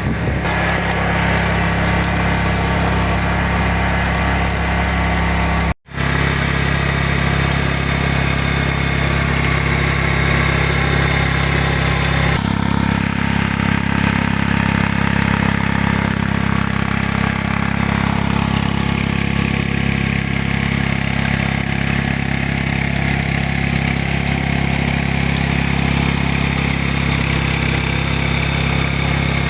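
Iseki A90 walk-behind tractor's engine running steadily while it drives a rear-mounted rotary tiller and furrower through garden soil. The sound drops out for an instant about six seconds in, and the engine note shifts about twelve seconds in.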